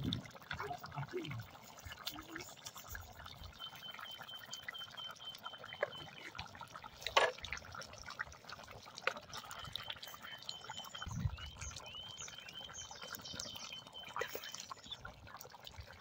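Thick meat-and-vegetable stew bubbling in a güveç pot over wood embers, with many small pops and gurgles at the boil and a sharper crack about seven seconds in. A thin high whistle-like tone comes and goes in the middle and later part.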